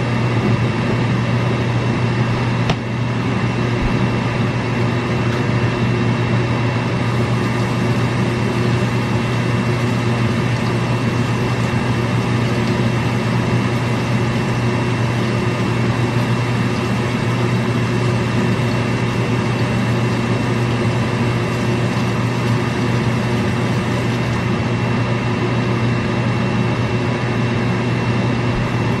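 Steady mechanical hum of a running kitchen appliance, with one light knock about three seconds in.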